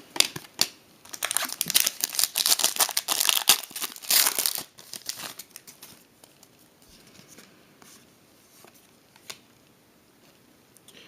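A trading-card pack wrapper being torn open and crinkled, with dense crackling for about four and a half seconds, then only a few faint clicks as the cards are handled.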